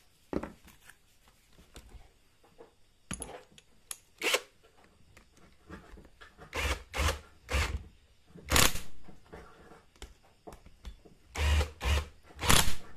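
Power drill driving bolts into a motorcycle clutch housing in a series of short spins, each under half a second, some in quick pairs, with pauses between.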